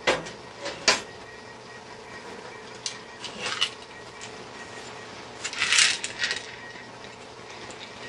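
Metal clinks and scrapes of a computer power supply's sheet-metal housing knocking and sliding against the steel case and its mounting plate as it is lined up: a couple of sharp knocks in the first second, lighter clicks around three and a half seconds, and a louder scraping rattle near six seconds.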